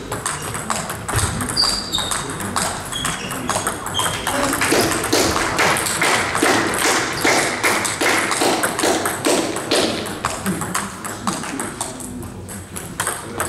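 Celluloid-type table tennis balls clicking on tables and bats around a sports hall, many irregular taps with voices in the background.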